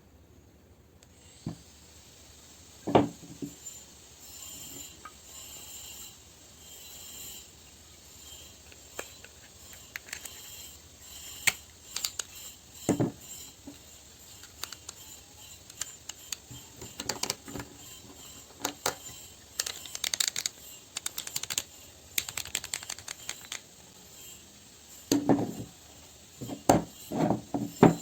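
Hand woodworking at a bench: scattered sharp clicks and knocks of wood and hand tools, with a loud knock about three seconds in, another a little before the halfway point, and a quick run of knocks in the last few seconds.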